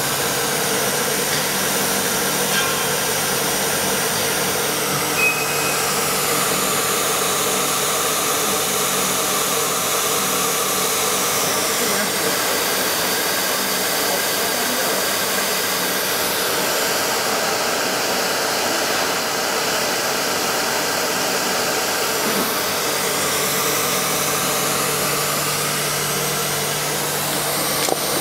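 CNC nesting router running: a steady whine and rushing noise, with high-pitched tones that slowly slide up and down now and then.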